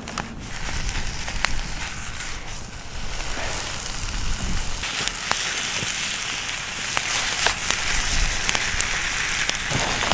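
Beef frying: a steady sizzling hiss with scattered pops and spits, growing louder about five seconds in.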